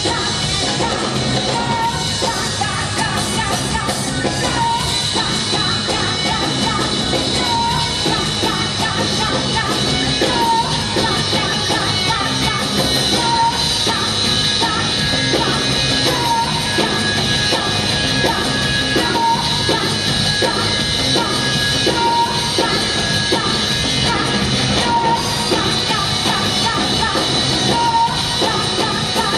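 Loud rock music with singing and a full band, a short high note recurring about every three seconds.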